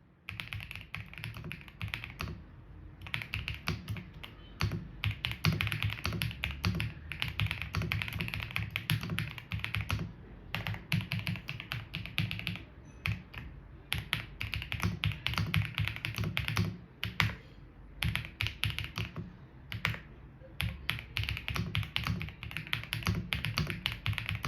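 Typing test on an EPOMAKER Cypher 96 gasket-mounted mechanical keyboard: fast, irregular keystroke clacks with brief pauses between bursts.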